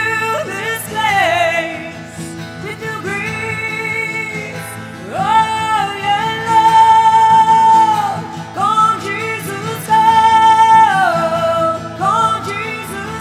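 Live worship music: a woman singing long held notes that glide between pitches, over guitar accompaniment.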